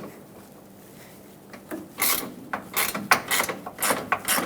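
A 10 mm hood-latch mounting bolt being loosened with a hand tool: a quick run of metallic clicks and scrapes, typical of a ratchet, starting about two seconds in.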